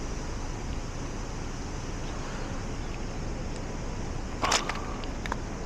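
Steady outdoor traffic noise, with a brief clatter about four and a half seconds in and a few faint ticks after it as the antenna base is handled and seated on the tripod's mount.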